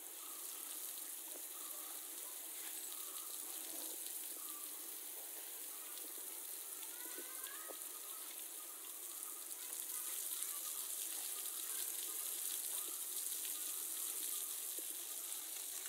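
Spray of water showering down onto an elephant's head and back, a steady hiss and patter of water on its hide that grows a little louder about ten seconds in.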